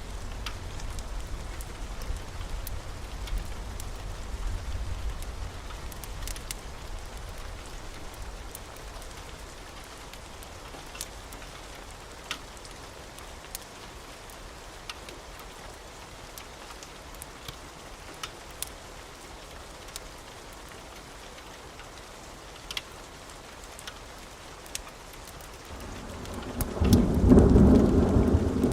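Steady rain with a low thunder rumble fading away over the first several seconds, occasional sharp fire crackles, and a loud roll of thunder building up about 26 seconds in.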